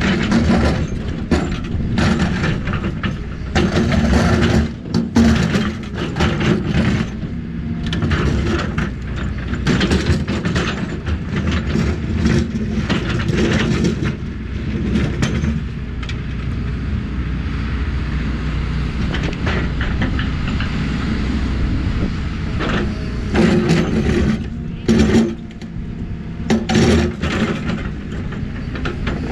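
Excavator's diesel engine running steadily, with frequent clanks and scrapes from the bucket digging into dirt. Through a stretch about halfway through, the knocks thin out and mostly the engine drone is heard.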